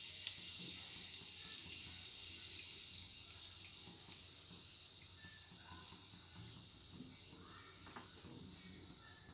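Cloves and bay leaves sizzling in hot oil in a pan: a steady hiss that slowly dies down, with a few small pops.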